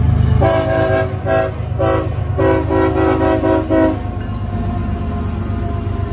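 CSX diesel locomotive horn sounding several tones at once: a few short blasts, then one longer blast that stops about four seconds in. Under it runs the low, steady rumble of the passing locomotive and train.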